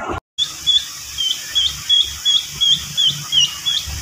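Peafowl chicks peeping: a steady string of short, high peeps, each falling in pitch, about three a second.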